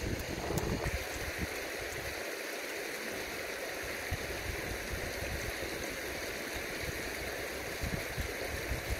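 Shallow river running over stones, a steady rushing hiss, with wind buffeting the microphone in uneven low rumbles.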